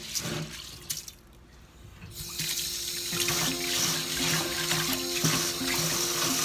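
Tap water running into a stainless steel bowl of rice in a sink, starting about two seconds in, while hands rub the wet rice to wash it. Before the tap comes on, only the quieter sound of hands working the wet rice.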